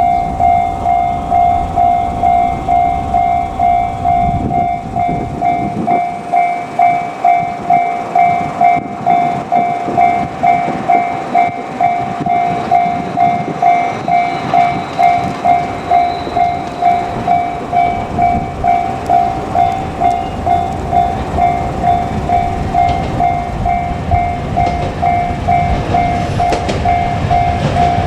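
Japanese railway level-crossing alarm ringing its repeated 'kan-kan' tone in a fast, steady rhythm, over the low rumble of a JR Kyushu 817 series electric train on the line.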